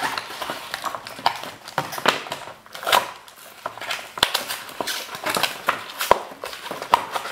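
Hands pulling Nerf foam darts out of their packaging: irregular rustling, crinkling and small clicks, with a couple of sharper knocks in the second half.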